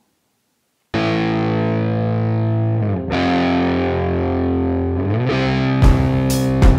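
Background music, starting about a second in: distorted electric guitar holding long chords that change every two seconds or so, with drum hits coming in near the end.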